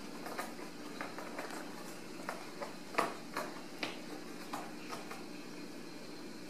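Irregular short taps and scuffs from a Ragdoll cat and kitten wrestling on a corrugated-cardboard scratcher bed, the loudest about three seconds in.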